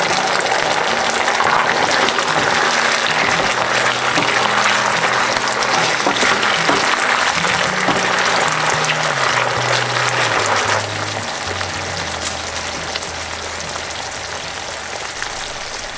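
Chilli paneer sauce sizzling and bubbling in a pan, over background music with a low bass line. The sizzle weakens about eleven seconds in.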